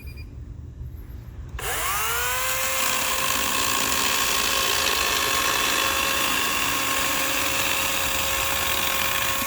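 Kobalt cordless battery-powered chainsaw starting up about one and a half seconds in, its electric motor and chain quickly spinning up to a steady high whine and holding that pitch while cutting through a piece smoothly, without bogging down.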